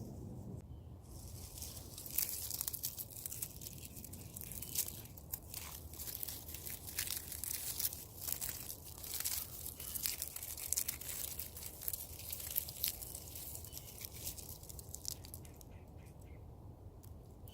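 Dry tinder being crumpled and torn by hand, a dense run of crackles and crunches that thins out near the end.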